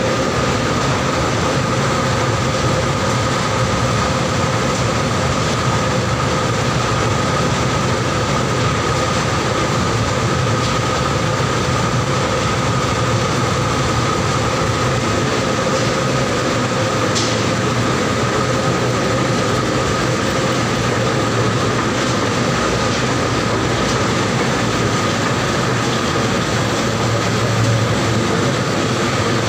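Mustard oil expeller machines running, driven by electric motors through belts and pulleys: a steady, loud mechanical drone with a constant whine over it.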